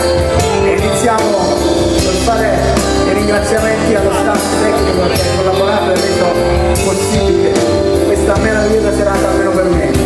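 Live pop band playing a song with a steady drum beat, keyboards and guitar, while a man sings lead into a microphone.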